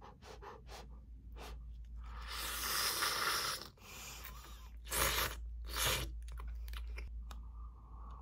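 A person slurping instant cup noodles: one long slurp about two seconds in, then two short, sharp slurps around five and six seconds, with light chewing and small clicks in between.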